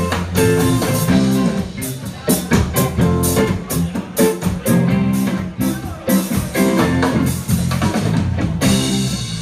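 Live reggae band playing with two electric guitars, bass guitar and drum kit at a steady beat. Near the end the drums stop and a final chord rings out.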